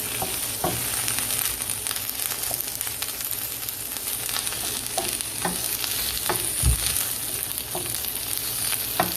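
Diced onion, carrot and green beans sizzling in vegetable oil in a non-stick skillet as they are stirred. The stirring utensil taps and scrapes on the pan every half second or so, with one dull thump about two-thirds of the way in.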